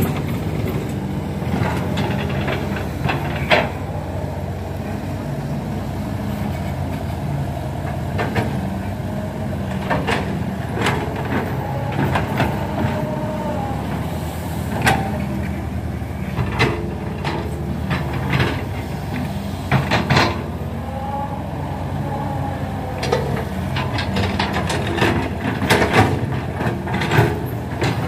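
Diesel engines of two tracked hydraulic excavators running steadily as they dig red clay. Scattered sharp knocks and scrapes come from the buckets and the clods of clay.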